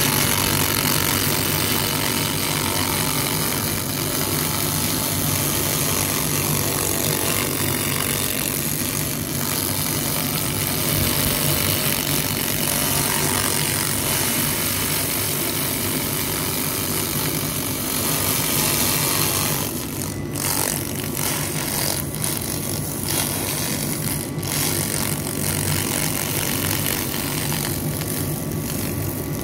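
Handheld pulsed laser cleaner stripping a metal surface: a steady, dense hiss over the machine's low hum. The hiss drops away briefly a few times near the end as the beam stops and starts.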